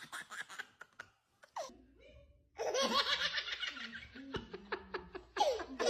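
A baby laughing in fits of rapid, breathy giggles, with a short pause between two bouts of laughter.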